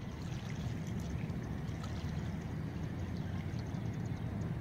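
A steady low rumbling noise with faint scattered ticks over it.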